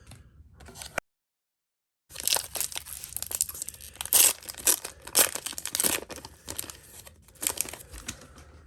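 Foil Pokémon booster pack wrapper being torn open and crinkled by hand, a dense run of crackling and tearing. A second of dead silence about a second in breaks it.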